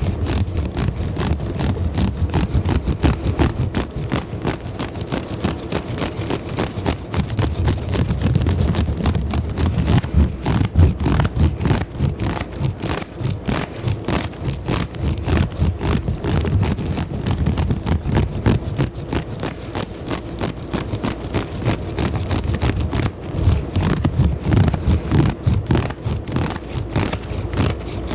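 Fast, continuous scratching and rubbing close on an ASMR microphone: a dense rattle of tiny scrapes with a heavy low rumble.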